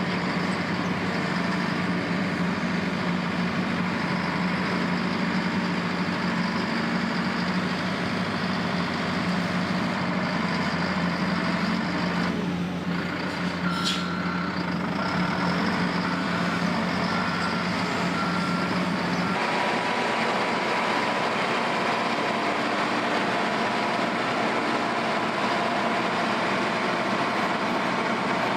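Heavy diesel construction machinery running steadily. A backup alarm beeps for a few seconds around the middle, and about two-thirds of the way through the engine sound changes to a different, lighter note.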